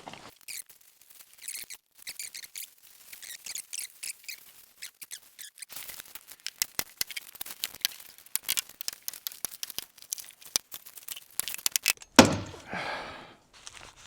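Synthetic house wrap sheeting being handled, with crackling and crinkling in many quick irregular clicks. Near the end comes a louder sudden sound lasting about a second.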